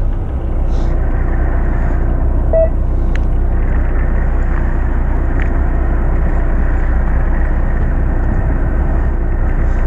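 Fishing boat's engine running steadily as a low rumble.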